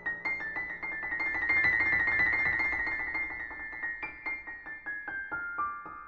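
Solo piano music: a fast run of quick repeated high notes, then a line that steps down in pitch over the last couple of seconds.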